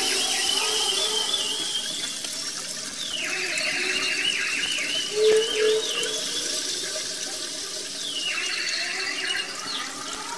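Electric router milling a groove into a gypsum plasterboard sheet: a steady rushing noise with a wavering high whine that comes in three stretches, at the start, around the middle and near the end, as the cutter bites into the board.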